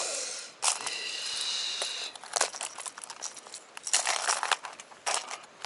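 Hard plastic lures and their treble hooks clicking and rattling against a plastic tackle box as lures are handled and one is picked out, in scattered sharp clicks. A thin high steady tone sounds for about a second and a half just after the start.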